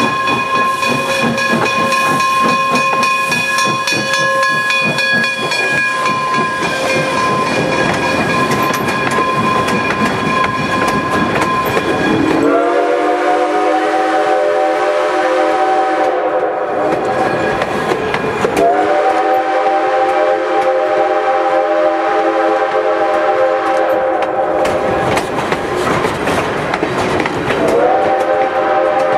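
Reading 6-chime steam whistle on 4-4-0 steam locomotive #98 blows one long chord for about twelve seconds while the train rolls past with wheels clattering on the rails. Then a Leslie RS3L air horn on the trailing EMD SW900 diesel switcher sounds three long blasts, each sliding up in pitch as it starts.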